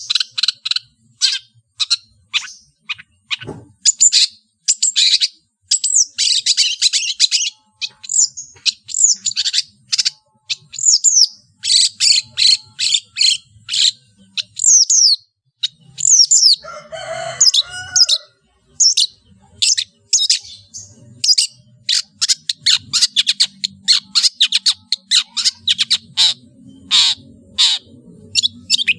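Long-tailed shrike (cendet) singing a fast, varied stream of short high chirps, sweeping whistles and harsh notes, full of mimicked calls of other birds. About halfway through, a lower, rougher chattering phrase of about two seconds breaks in.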